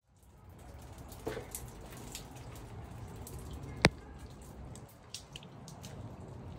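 Outdoor ambience with a steady low rumble and scattered light ticks and drips of water, and one sharp click about four seconds in.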